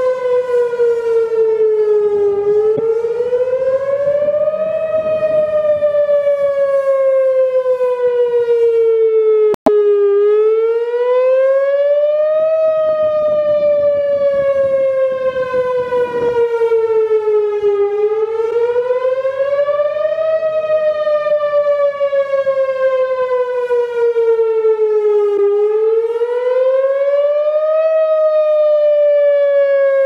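Warning siren wailing. The pitch climbs for about two and a half seconds, then sinks for about five, and the cycle repeats about four times. It cuts out for an instant about ten seconds in.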